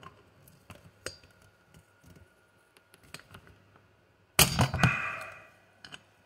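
Metal tools clicking and scraping against a nitro engine's flywheel as its nut is cranked tight with a nut driver and pliers, with a loud metallic clank about four and a half seconds in that rings briefly.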